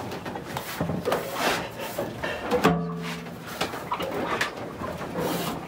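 Hands rubbing and pressing on a stainless-steel sink as it is seated into the bench top: a run of scuffs, scrapes and light knocks. A brief low pitched tone is heard about three seconds in.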